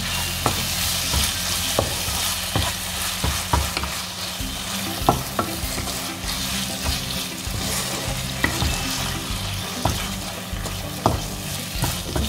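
Minced chicken in tomato sauce sizzling steadily in a nonstick frying pan while a wooden spatula stirs and scrapes through it, with irregular sharp taps of the spatula against the pan.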